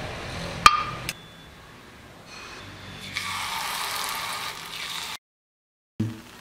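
A metal spoon clinks once, sharply, against a non-stick paniyaram pan as coconut oil is spooned into its cups. A few seconds later a hissing sizzle follows as batter goes into the hot, oiled cups; the sound cuts off abruptly near the end, then there is a single thump.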